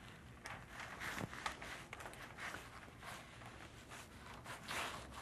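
Faint rustling and scraping of Flexwrap flashing membrane as gloved hands press and fold it over the stud, with a few faint clicks and a longer swish near the end.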